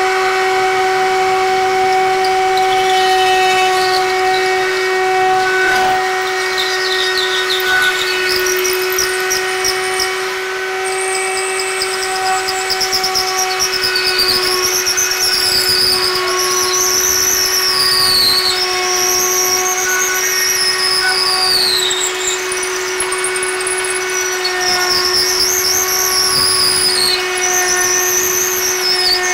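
Router in a router table running at a steady whine while a Doug fir arrow-shaft blank, spun by a cordless drill, is fed through a jig past the bit and cut round. From about ten seconds in, a higher whine rises and falls in pitch over the router's tone as the blank is turned and cut.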